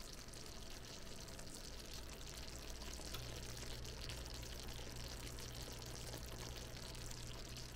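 Apple slices simmering in butter and brown-sugar syrup in a skillet: faint, steady bubbling and light crackle. A faint low hum comes in about three seconds in.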